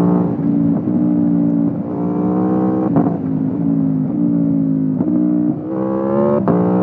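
Aprilia Tuono V4 Factory's V4 engine through an Akrapovic exhaust, heard onboard while riding, running at mid revs with its pitch drifting up and down. Two sharp cracks cut in, one about halfway through and one near the end, and the revs dip briefly and then come back stronger just past two-thirds of the way.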